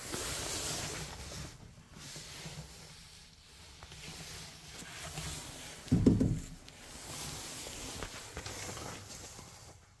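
Rustling, scraping handling noise that swells and fades in waves, with one loud low thump about six seconds in.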